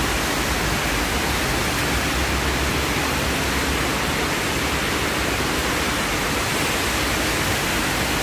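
Heavy rain pouring, a steady dense hiss with no let-up.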